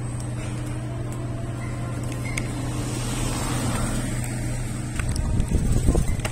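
Street traffic noise under a steady low hum, with a vehicle passing about halfway through. Heavy irregular low rumbling comes in near the end.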